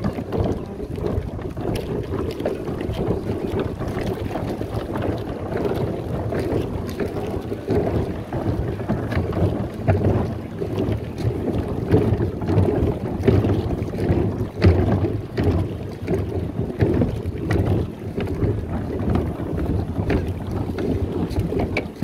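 Wind buffeting the phone's microphone, a steady gusty rumble, with many scattered light clicks and knocks mixed in.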